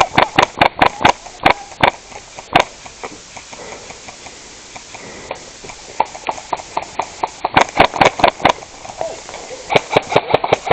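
Gas-powered airsoft rifle, a Daytona MSK/ACR, firing in quick semi-automatic strings of sharp cracks, about four or five shots a second. There are three strings with pauses between them: one at the start, one in the middle and a short one near the end.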